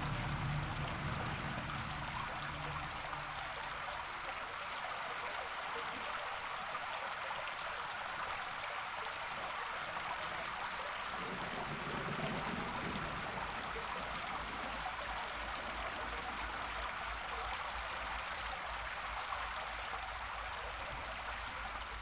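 Steady rushing, watery noise, like a rain or running-water sound effect, with a short low swell about halfway through.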